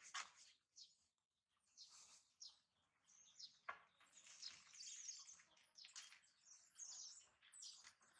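Small birds chirping faintly: many short, high chirps, some falling in pitch, coming thicker from about four seconds in.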